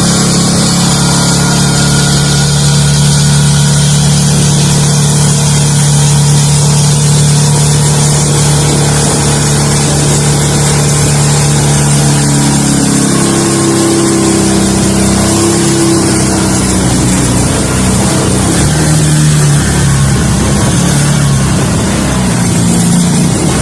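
Boat motor running at speed through shallow water, its steady note wavering and shifting about halfway through, with the rush of wind and water.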